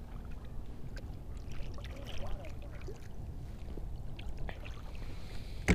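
Kayak paddle strokes in the water, with small drips and splashes, over a low steady rumble; a sharp knock near the end.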